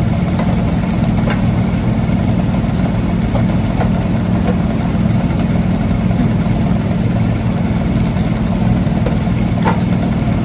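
Steady low mechanical hum of restaurant equipment running, with a few faint light clicks.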